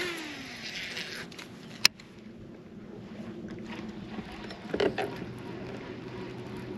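A cast with a fishing reel: the spool whirs and slows as line pays out, then a single sharp click just under two seconds in. A brief rustle comes about five seconds in, and a steady low hum runs from then on.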